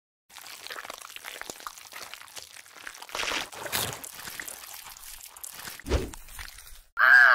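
Wet squelching and slurping sound effects with small crackles, dubbed over a stop-motion koi swallowing a purple eel. A low thud comes about six seconds in, and near the end a loud cartoon groan starts, falling in pitch.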